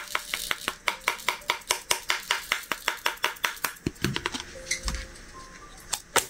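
Diamond painting pen tapping drills onto the canvas one after another, in quick clicks about five or six a second, slowing to a few taps about four seconds in.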